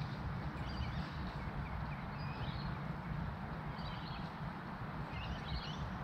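Birds chirping in short, scattered calls over a steady low rumble.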